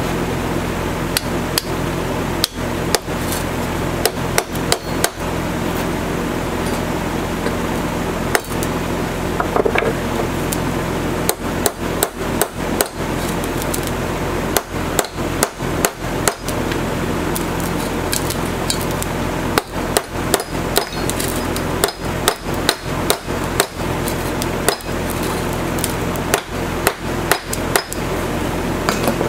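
Claw hammer striking a metal washer seated in the end of a metal exhaust tube, to fit and smooth it as the end cap of a homemade glass-pack muffler. The blows come in bursts of several quick strikes with pauses between them, over a steady low hum.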